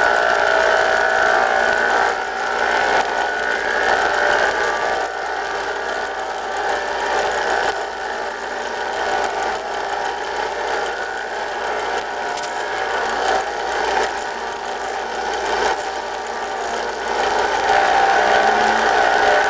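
Metalworking machine tool running steadily, a constant whine of several tones; a thin high whistle comes in near the end.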